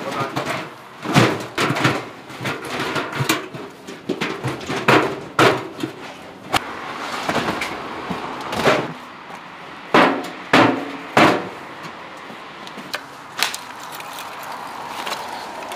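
Stainless-steel barrel roasters and their lids being handled and set down, giving an irregular series of metallic knocks and clanks, with three loud bangs in quick succession about two thirds of the way through.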